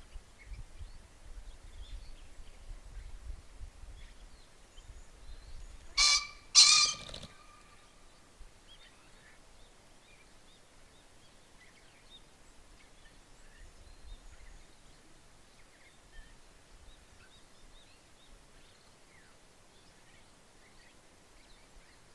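Male green pheasant crowing: two loud, harsh calls in quick succession about six seconds in.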